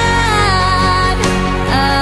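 A pop ballad playing, with a singer holding and sliding a note over piano and band chords.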